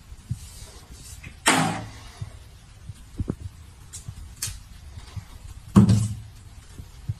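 Plastic toiletry bottles on a tiled shelf pushed and knocked about by a cat's paw: a few scattered knocks and scrapes, the loudest about a second and a half in and again near six seconds.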